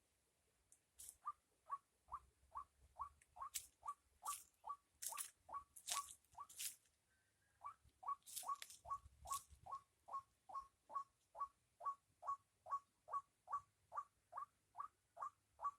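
An unseen animal in a rice paddy repeating a short call that drops in pitch, about two to three times a second, the 'kulek, kulek' call, breaking off briefly about seven seconds in. Sharp faint clicks come in among the first calls.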